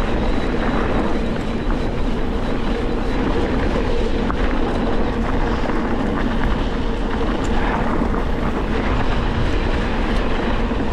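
Steady wind rush and rumble on a GoPro action camera moving fast downhill, loud and unbroken.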